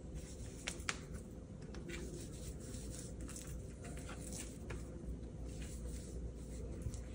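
Soft handling sounds of dusting raw fish pieces with cornstarch: scattered light clicks of a metal spoon scooping from a can and the hand rubbing and patting the fish on a plastic cutting board, over a faint steady hum.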